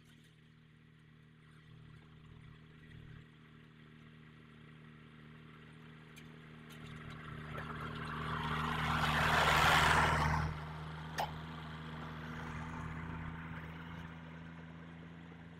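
Farm tractor engine running steadily while the tractor works the field. A rushing noise swells to its loudest about ten seconds in, then drops off suddenly, followed by a single sharp click.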